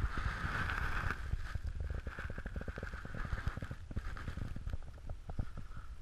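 Skis sliding and scraping over packed snow with a steady hiss, strongest in the first second, over a dense low rumble of wind and small bumps on the moving microphone.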